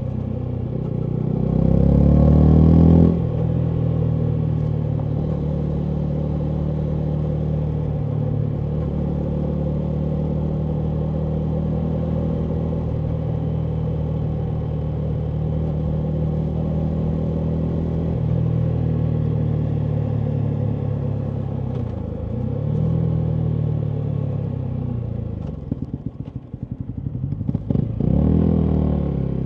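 Yamaha MT125's single-cylinder four-stroke engine through a full Akrapovic exhaust: it revs up hard about two seconds in, then holds a steady note while riding, rising and falling again past the middle. Near the end the exhaust crackles and pops on a closed throttle before the engine revs up once more.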